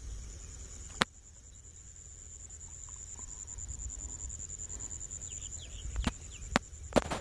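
Insects droning steadily at a high pitch, with a few sharp clicks about a second in and near the end.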